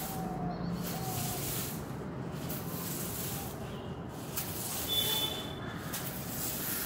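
Short-handled grass broom sweeping a paved floor: repeated brushing swishes, stroke after stroke.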